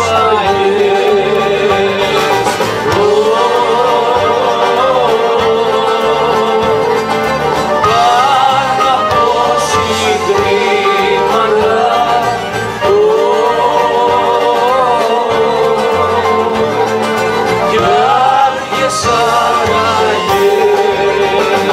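Live performance of a Greek song: a sung melody over a small acoustic band with accordion and a plucked string instrument.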